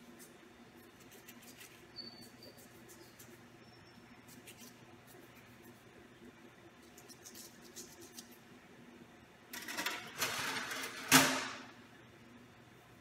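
Stiff brush scrubbing stainless steel Kelly hemostatic forceps in faint scratchy strokes, over a low steady hum. About ten seconds in comes a louder rush of noise lasting a couple of seconds, ending in a sharp metallic clink that rings briefly.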